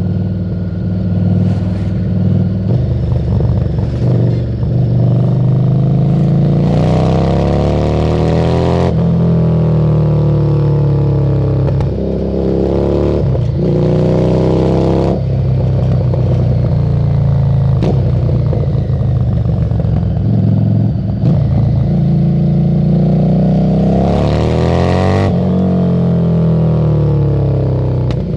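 Harley-Davidson Street 750's liquid-cooled V-twin running through a Screamin' Eagle exhaust while riding. It accelerates hard about three times, the note rising and then dropping sharply at each gear change, with wind rush over the mic during the pulls.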